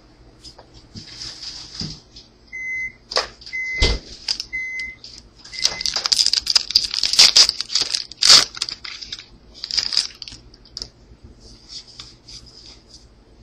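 Trading card pack wrapper crinkled and torn open, and cards riffled and handled, with the densest crackling a little past the middle. Four short electronic beeps, about one a second, sound in the first half.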